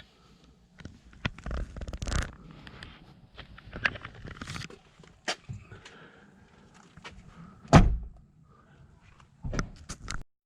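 Scattered clicks and knocks of someone moving about and handling things inside a camper van, with one heavier thump nearly eight seconds in.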